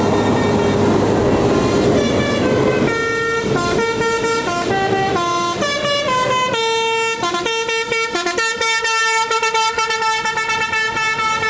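Bus engine and road noise, then from about three seconds in a telolet basuri bus horn plays a tune: several clear tones sounding together, stepping up and down in pitch every half second or so.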